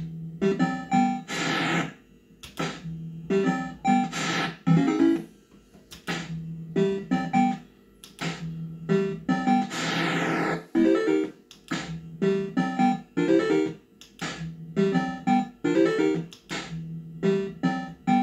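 Bell-Fruit Cash Explosion fruit machine's electronic sound effects: short beeps and little jingles that repeat over and over as the reels are spun, with a falling sweep now and then.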